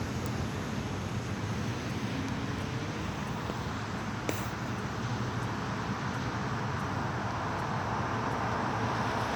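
Highway traffic going by on a rain-wet road: a steady hiss of tyres and engines, growing slowly louder near the end, with one sharp click about four seconds in.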